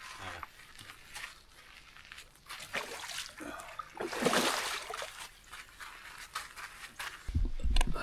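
Water sloshing and dripping with handling knocks as a freshly landed pike is handled, with a louder splash about four seconds in and heavy thumps near the end.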